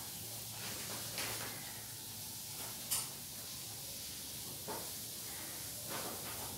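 Steady background hiss with four short, sharp taps spaced a second or two apart, the sharpest about three seconds in.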